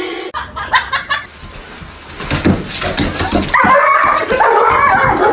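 Scuffling and rustling with knocks, then a dog whining and yelping in loud, wavering cries for the last couple of seconds.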